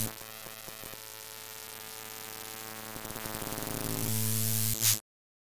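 Electronic logo sting: a held synthesizer drone with a rattling buzz that builds steadily louder, ending in a short burst and cutting off abruptly about five seconds in.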